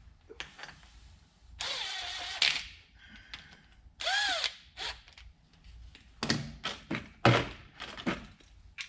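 A cordless power driver runs in small bolts in two short bursts, the second spinning up and back down, followed by a run of sharp metallic clicks and knocks from hand tools.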